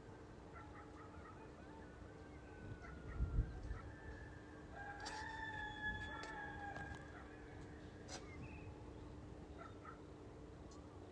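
A rooster crowing once in the middle, a single call of about two seconds, over a steady low hum. A dull thump comes shortly before the crow.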